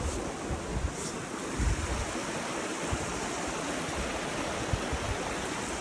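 Creek rushing over rocks: a steady wash of water noise, with occasional low thumps of wind or handling on the microphone.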